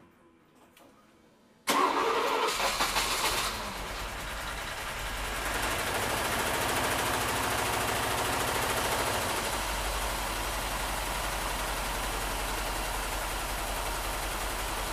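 Mercedes-Benz 450SL's 4.5-litre V8 started for the first time on a newly fitted VEMS aftermarket engine management system. About two seconds in, the starter cranks in short pulses, then the engine catches and runs at a steady idle.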